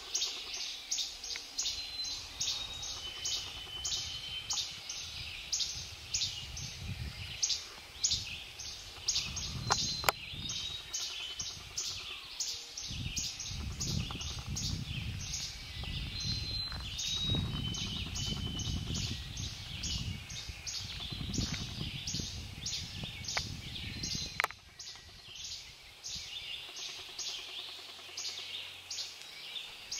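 Dawn bird chorus in northern woodland: rapid high chirps repeating about three times a second throughout, with a few short, clear whistled notes among them. A low rumble runs under the middle of the stretch and stops about three-quarters of the way through.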